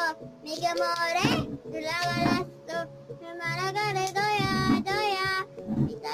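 A song playing: a high singing voice over a steady instrumental accompaniment.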